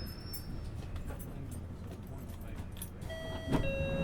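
London Underground train carriage rumbling at low speed. About three seconds in, a two-note electronic chime sounds, a higher note then a lower one, with a sharp clunk between the notes.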